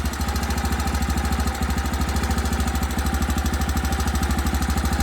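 Honda Little Cub's small single-cylinder four-stroke engine idling with a steady, even beat. It has a newly fitted cam chain tensioner roller, and the abnormal noise it had is almost gone.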